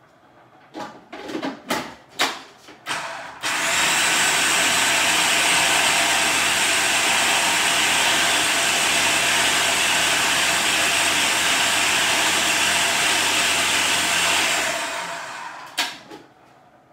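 Electric food processor running steadily for about eleven seconds as it blends a pesto of tomatoes, basil and toasted almonds, then winding down. A few knocks and clicks come before it starts and again after it stops.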